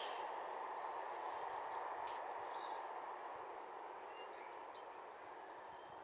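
A steady distant rushing sound that slowly fades over the second half, with a few short, high bird chirps about a second in and again near the fifth second.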